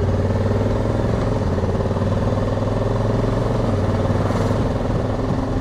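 Honda Africa Twin's parallel-twin engine running at a steady pitch while the motorcycle is under way, with wind and road noise over it.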